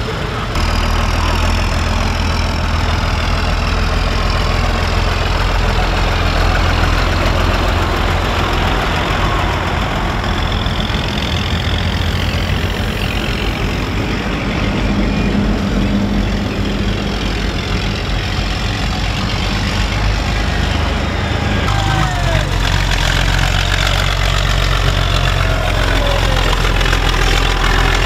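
Farm tractor engines running with a steady low hum as light-decorated tractors drive past.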